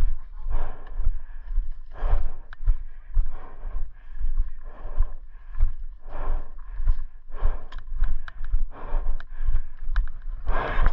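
Footsteps of a person on foot, about one and a half steps a second, with a few sharp clicks of gear on top.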